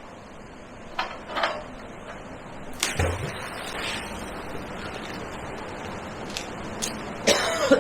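A sharp knock about three seconds in, among a few fainter clicks, over a steady hiss.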